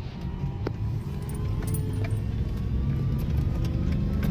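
Farm truck engine labouring in four-wheel-drive low while reversing uphill through wet slush, heard from inside the cab, struggling for traction on bald tyres. It runs as a heavy low rumble that grows louder, the engine note rising slightly near the end.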